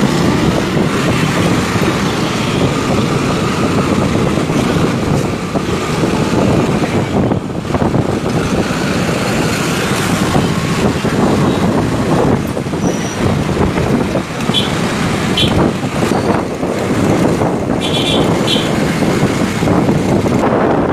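A motorbike running while being ridden, with steady engine and road noise. A few brief high-pitched sounds come in the second half.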